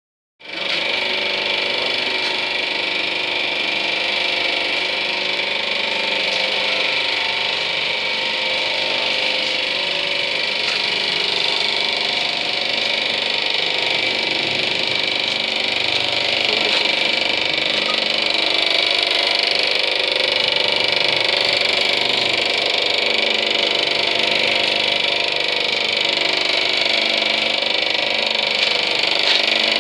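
Cutaway model of a John Deere 5310 tractor's engine and drivetrain in motion, its exposed parts making a steady mechanical running noise that starts about half a second in.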